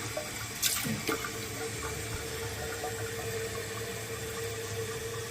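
Toilet tank refilling through its fill valve after a flush: a steady hiss of running water, with a short click about half a second in and a steady hum from about a second in.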